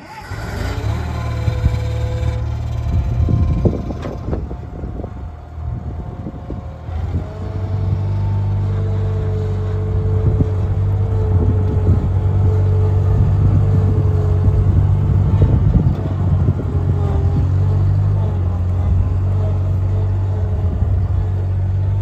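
Bobcat 642B skid steer loader's engine running. It is uneven and weaker about four to seven seconds in, then holds steady at a higher speed while the machine drives.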